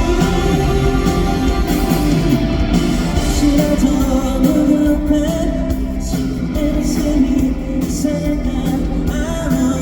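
A live pop-rock band playing a song with a lead vocal over amplified guitar, bass and drums.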